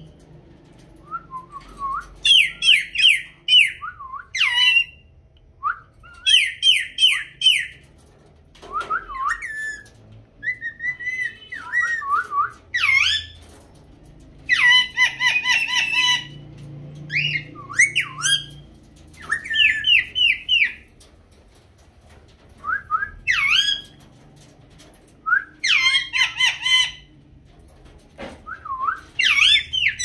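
Caged pet parrots whistling and calling: repeated bursts of quick whistled notes that slide up and down, with short pauses of a second or so between them.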